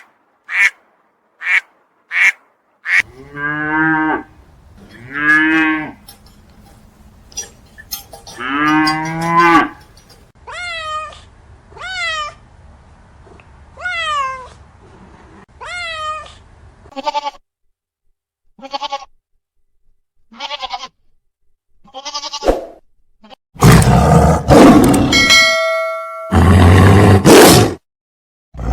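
A sequence of different animal calls: a string of short sharp calls, then a few low, drawn-out calls, then a run of quick falling chirps, ending with loud roars.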